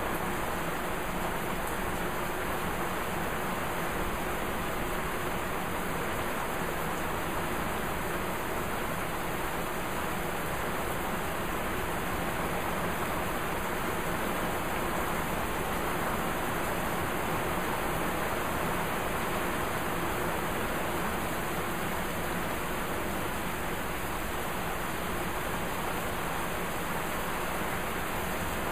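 Heavy rain falling steadily in a thunderstorm, an even hiss that holds at the same level throughout, with no thunder claps.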